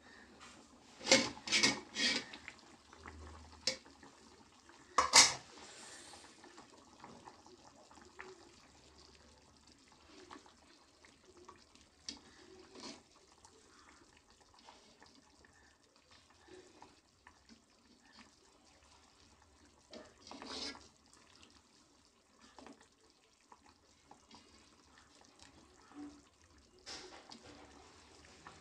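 Metal pot lid and ladle clanking against a metal cooking pot: a cluster of sharp clanks in the first few seconds, the loudest about five seconds in, as the lid is taken off, then occasional lighter knocks as the ladle stirs the fish curry.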